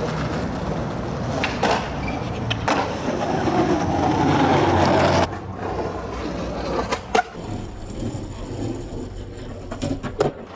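Skateboard wheels rolling over pavement, with a few sharp clacks of the board. The rolling turns quieter about five seconds in, and the loudest clack comes about seven seconds in.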